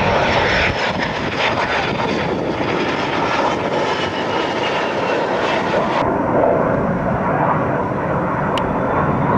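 EF-18 Hornet fighter jet's twin turbofan engines flying past on approach, a dense roar with a high whine that slides slowly down in pitch. About six seconds in, the sound cuts abruptly to a duller aircraft engine drone without the whine.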